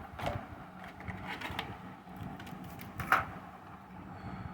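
A few light clicks and rustles from a diecast model car being picked up and handled, over a low steady hum.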